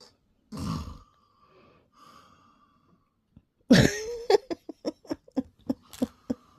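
A man snoring in his sleep, one snore about half a second in. About four seconds in comes a loud voiced outburst, then a string of short breathy bursts, about three a second.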